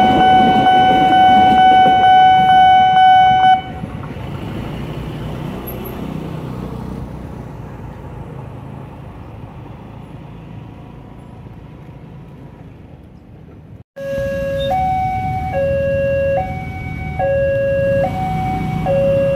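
Railway level-crossing warning alarm with an electric commuter train passing. First a steady single tone over the train's rumble; it stops abruptly and the rumble fades away. After a sudden cut about fourteen seconds in, the alarm sounds as two alternating tones, low and high, swapping roughly every second.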